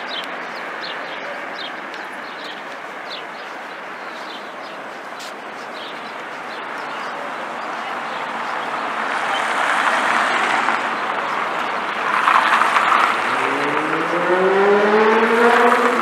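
Street traffic: cars driving past with engine and tyre noise that swells and fades. Near the end, one car's engine revs up as it accelerates, its pitch rising.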